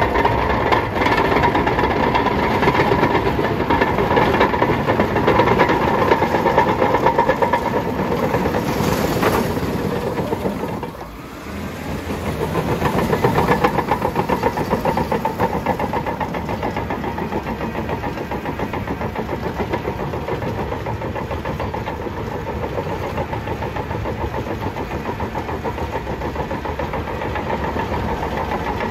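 Bulldozer's diesel engine running at close range while it works, dropping off briefly about a third of the way through and then building back up to a steady run.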